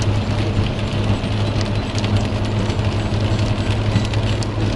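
Car cabin noise at motorway speed in heavy rain: a steady low drone of engine and tyres on the wet road, with the hiss of spray and rain on the windscreen and scattered faint ticks.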